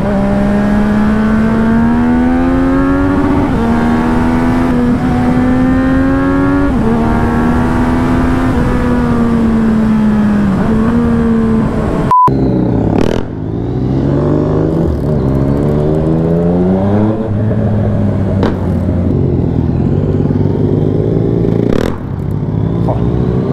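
Yamaha MT-09 SP three-cylinder engine under way, heard from the rider's seat. The revs climb and then drop at each upshift every few seconds. After a short break the engine pulls up again from low revs, shifts up, and settles to a lower, steadier run.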